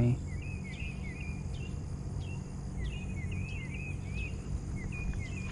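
Outdoor insect chorus droning steadily, with short chirping calls coming in quick little runs, over a low steady hum.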